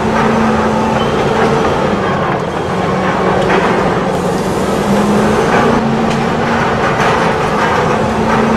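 Steady, loud engine and machinery noise like a working excavator, with a wavering low drone and a few brief clanks.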